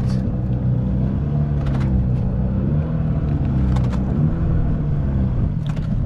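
A boat engine running steadily as a low, even hum, with a few faint light clicks over it.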